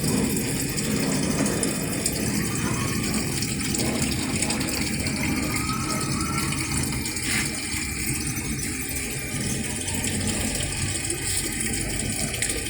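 Automatic washing machine filling with water: a steady rush of water pouring into the tub as it refills to the selected water level.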